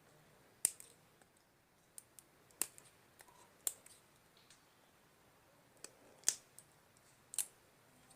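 Scattered sharp clicks and snips, about seven, as a hand tool works open the casing of a AA zinc-carbon pencil battery.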